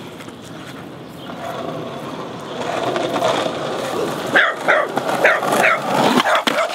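Small dog barking, a quick run of about five sharp barks starting a little past halfway, over the rolling of skateboard wheels on pavement that grows louder as the board approaches.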